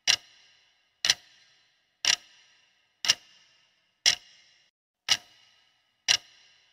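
Clock-tick sound effect of a quiz countdown timer: sharp, evenly spaced ticks, one per second, seven in all, each with a short ringing tail.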